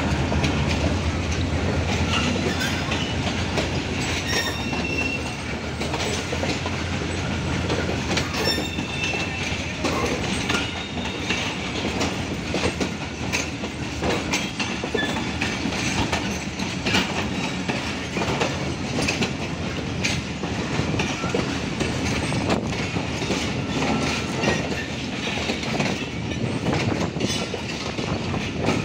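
Diesel locomotive's engine humming as it passes near the start, then a rake of Pakistan Railways passenger coaches rolling past. The wheels clack over rail joints, with a few brief high wheel squeals.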